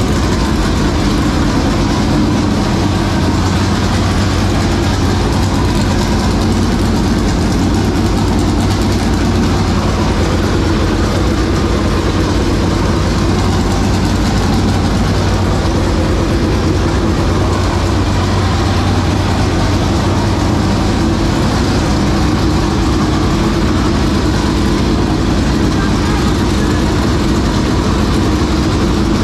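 A dirt late model's 465-cubic-inch race V8 runs steadily at idle with an even, unbroken note.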